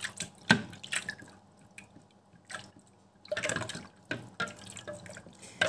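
StylPro Squeeze makeup-sponge cleaner: its plastic plunger pushed down into the jar of soapy water, with sharp plastic clicks and knocks, splashing and dripping. It goes quiet for a moment in the middle, then more splashes and clicks.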